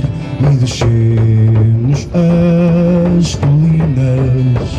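Live band music: barrel-shaped wooden drums beaten with sticks in a steady rhythm, with acoustic guitar under a melody of long held low notes.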